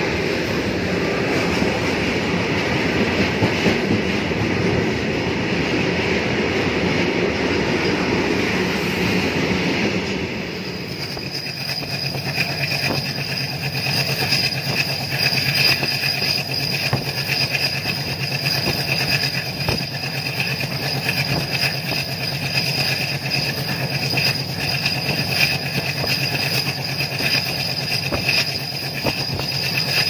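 Freight train wagons running past close by, a loud, dense rail noise. About ten seconds in the sound changes to the ride aboard a moving train: wheels running on the rails with a steady high-pitched ring and frequent clicks from the track.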